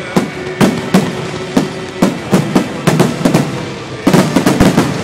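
Aerial fireworks shells bursting in quick succession during a display's finale barrage: sharp bangs about every third of a second, each with a rolling echo, crowding into a rapid volley about four seconds in.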